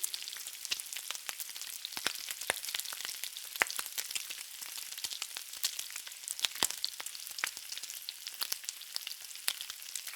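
Irregular crackling: many small sharp clicks and pops, a few louder than the rest, over a light hiss.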